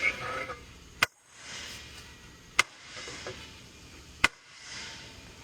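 Three sharp knocks about a second and a half apart, struck on a three-piece aluminum racing wheel to break apart wheel halves stuck together with RTV sealant.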